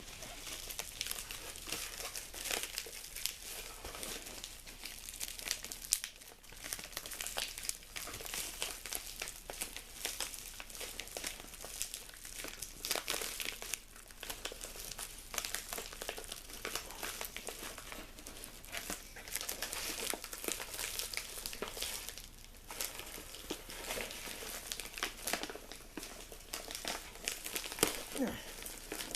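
Hands opening a mailed package: packaging crinkling, rustling and tearing in a busy run of crackles, with a few brief pauses.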